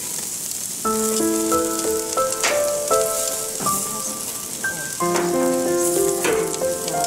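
Potatoes sizzling on the hot grates of a Char-Broil infrared gas grill, a steady hiss. Background music of held notes comes in about a second in and plays over it.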